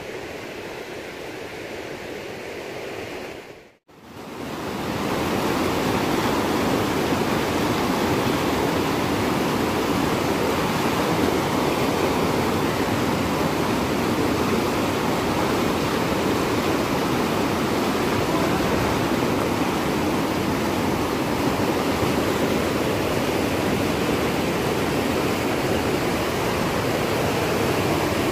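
Whitewater rapids of a fast river rushing steadily. The sound is quieter for the first few seconds, drops out briefly about four seconds in, then comes back louder and stays even.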